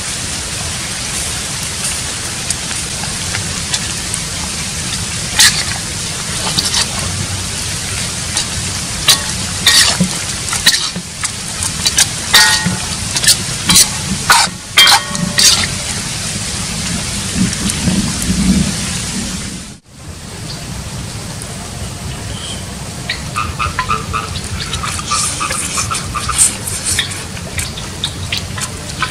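Metal ladle scraping and knocking against a steel wok, with a cluster of sharp clanks, some ringing briefly, in the middle. Under it all runs a steady hiss.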